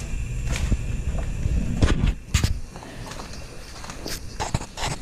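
Footsteps on a concrete garage floor, with a few scattered sharp knocks and clicks, over a low rumble that eases off about two seconds in.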